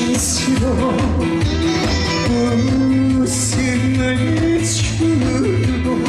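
Live band music amplified over a PA, with a steady bass beat, held melody notes and a few cymbal crashes.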